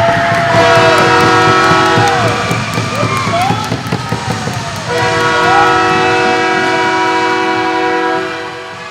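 Ice hockey arena goal horn sounding in two long blasts, each about three seconds, over a cheering crowd.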